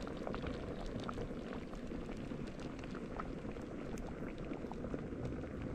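A large pot of chicken foot soup boiling hard over a charcoal fire: steady bubbling with many scattered small pops.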